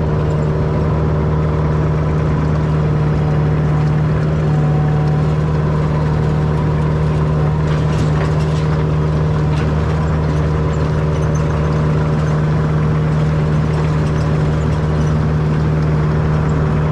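Engine of a work machine running steadily with an even drone as the machine is driven over sidewalks.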